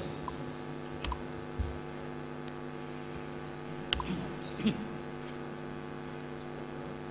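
Steady electrical mains hum, with about five scattered clicks and light knocks in the first few seconds from a laptop being handled and its keys pressed.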